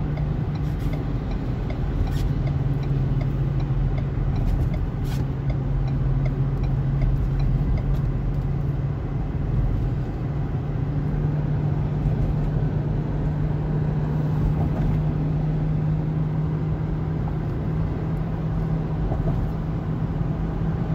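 Inside a car cruising on an expressway: a steady low hum of engine and tyre noise, with a few faint clicks in the first few seconds.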